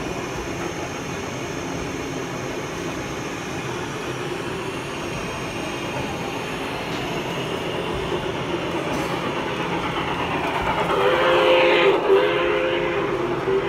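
Model train running on the layout: a steady rumbling run that grows louder toward the end and peaks about twelve seconds in. From about eleven seconds a held train signal of a few tones sounds together and carries on to the end.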